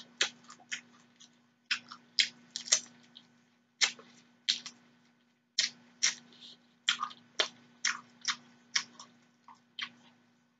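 Close-miked mouth sounds of eating crawfish and shrimp by hand: irregular wet smacks, sucks and chewing clicks, one or two a second.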